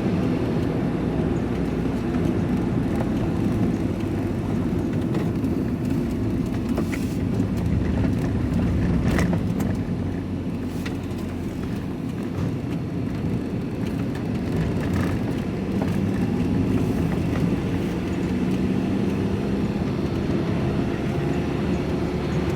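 Van engine and road noise heard from inside the cab while driving: a steady low rumble and hum.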